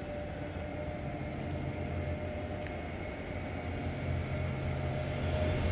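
A steady, low engine-like rumble with a faint steady hum above it, slowly growing a little louder.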